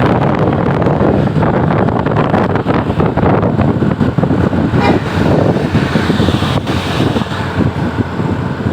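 Road traffic running close by, a steady loud noise of engines and tyres with some wind on the microphone.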